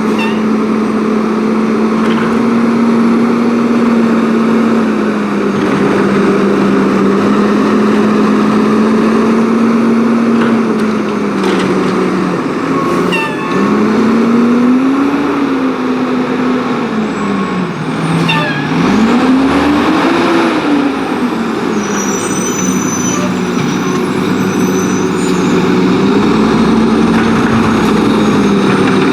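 Autocar WX garbage truck's diesel engine revving in gear, held at a steady high speed, then falling and climbing again twice about halfway through before settling back. A few brief sharp clicks sound over it.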